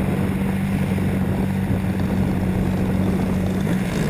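RC airplane's motor and propeller running at steady throttle, heard from a camera mounted on the plane: a loud, even drone that holds one pitch.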